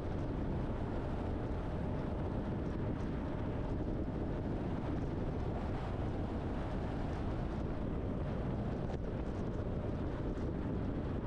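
Steady low rumble of a semi truck on the road, engine and tyre noise running evenly with no change in speed.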